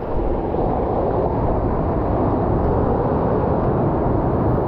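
Steady rushing of ocean surf and churning water close around a surfer's water-level camera as he paddles out. It is loud and unchanging, with no separate splashes standing out.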